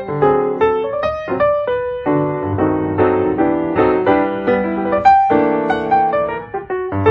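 Background piano music: a gentle melody with chords, notes struck one after another.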